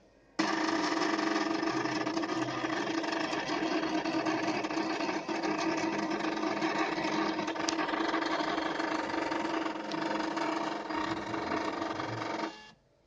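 Diatron Abacus 380 hematology analyzer running, a steady mechanical motor hum that starts abruptly and cuts off shortly before the end.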